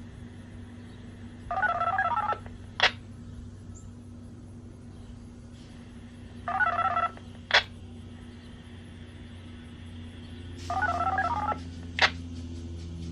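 Three short bursts of touch-tone style dialing tones, each lasting under a second, spaced about five seconds apart. Each burst is followed about a second later by a sharp click. Near the end a low steady hum comes up.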